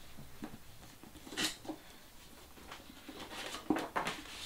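Paper dust jacket rustling and sliding as it is worked off a hardcover book, with a few soft knocks from the book being handled.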